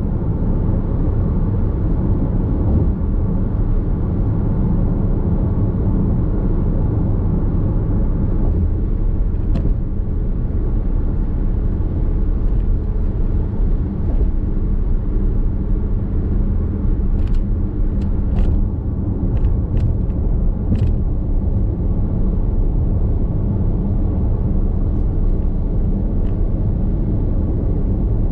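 Steady low road and tyre rumble of a Nissan X-Trail Hybrid cruising at expressway speed, heard from inside the cabin, with a few faint clicks a little past the middle.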